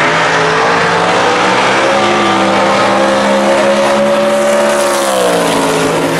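Two drag cars, one of them a 1941 Willys, launching off the line at wide-open throttle and running down the strip. The loud engine note climbs steadily in pitch, then falls about five seconds in.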